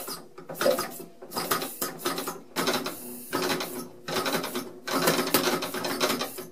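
Homemade two-stroke engine with a copper-pipe cylinder being spun over by hand on a steam-engine crank and flywheel, clattering in repeated short bursts about once a second as it is cranked without starting.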